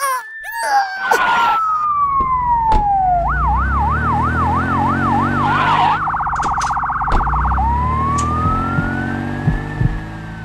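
Ambulance siren with engine noise, as a cartoon sound effect. It goes through several patterns: a slow falling wail, then a quick up-and-down yelp of about three to four cycles a second, then a very fast trill, then a slow rise. Under it runs a low vehicle rumble.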